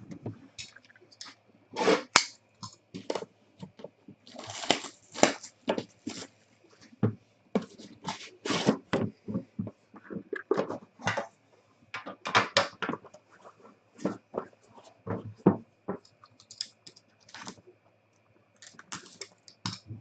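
A sealed trading card box being opened and its packaging and cards handled: irregular cardboard and plastic clicks, scrapes and rustles, with a longer crinkling, tearing stretch about four to six seconds in. A faint steady electrical hum sits underneath.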